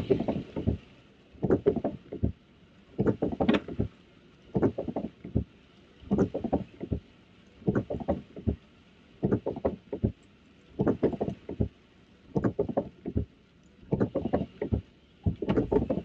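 Car windshield wipers sweeping back and forth, each pass a short cluster of rubbing strokes, repeating about every second and a half.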